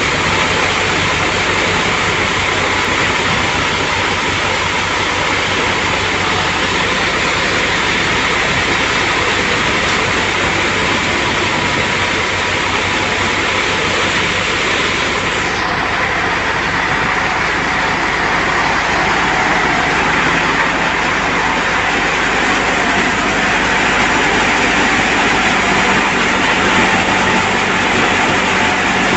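Tractor-driven Gill thresher running steadily while threshing pigeon peas: a loud, even rush of machine noise with a constant hum, the tractor engine running under it. The sound shifts slightly about halfway through.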